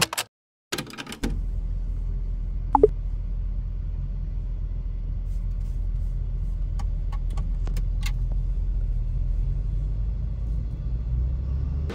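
Steady low rumble inside a car's cabin on the road, starting about a second in. A short squeak about three seconds in and a few faint clicks later on sit over it.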